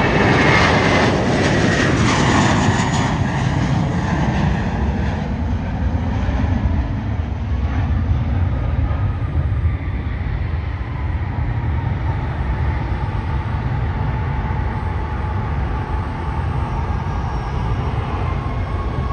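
Jet airliner taking off and passing by at takeoff power. The engines' whine falls in pitch over the first few seconds, then gives way to a steady rumble that slowly eases.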